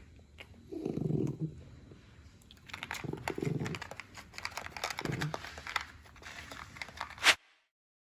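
Shih poo dog growling in three low rumbles while eating, with crunching, chewing clicks throughout; the growls are the dog enjoying its meal, not aggression. A loud click about seven seconds in, then the sound cuts off.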